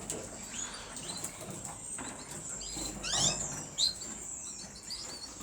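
Caged canaries chirping softly, with a quick run of short falling chirps about three seconds in.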